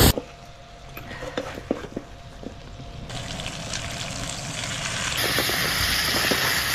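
A few sharp clicks, then a steady watery hiss that jumps louder about three seconds in and again about five seconds in.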